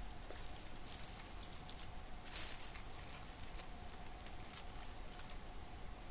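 Plastic piping bag of cream crinkling faintly as it is handled, in short rustles with one louder rustle about two seconds in.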